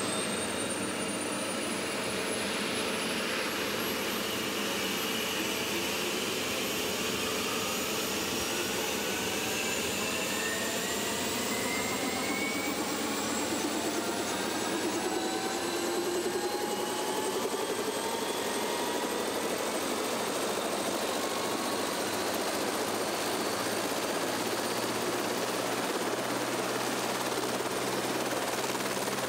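Eurocopter AS555 Fennec helicopter starting up on the ground: the turbine whine climbs steadily in pitch for about twenty seconds as the rotor spins up, then holds steady at flight speed over a constant engine and rotor noise.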